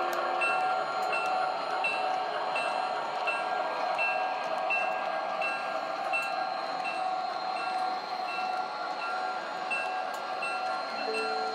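O gauge model train running along the track with a steady whirring rumble, while a short high ding repeats about every 0.7 s.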